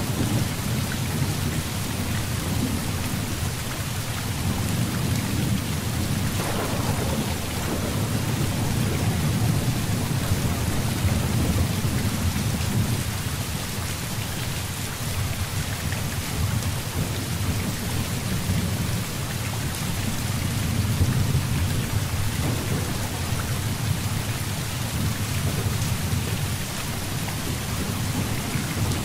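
Heavy rain falling steadily, with low thunder rumbling through it and swelling and fading several times. There is a sharper roll of thunder about six seconds in.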